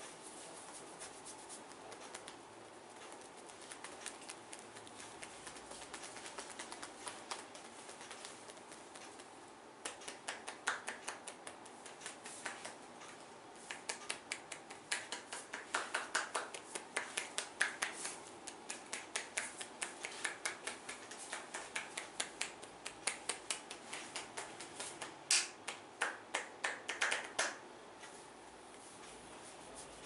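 Hands massaging a man's head: fingers rubbing through the hair, then from about ten seconds in runs of quick, sharp taps and snaps of the hands, several a second, with the loudest cluster a few seconds before the end.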